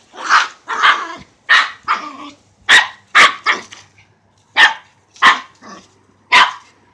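Dog barking over and over, about ten short, sharp barks in uneven bursts, excited at a kicked ball.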